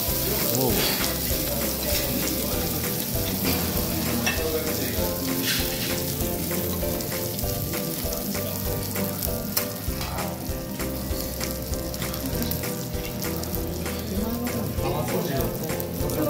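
Cubes of Omi beef sizzling steadily on a steel teppanyaki griddle, with a few sharp clicks of the chef's metal knife and spatula against the steel.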